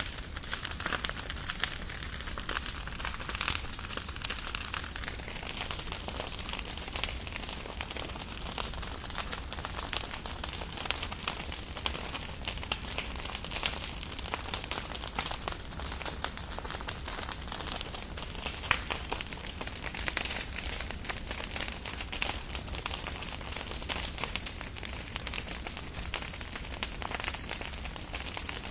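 Firewood burning, with a steady run of small crackles and pops.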